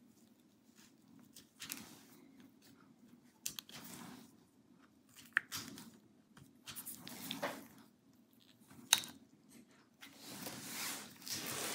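Plastic pry tool working the taped battery connector on a laptop motherboard: a few faint sharp clicks between soft scraping and crinkling of the tape, with a longer scrape near the end.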